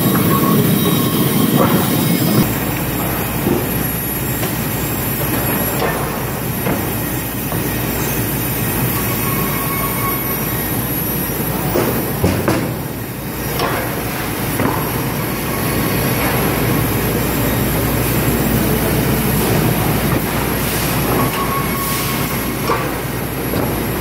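Sawmill machinery running: log chain conveyors and rollers carrying logs, a steady loud mechanical clatter with a few sharp knocks through it.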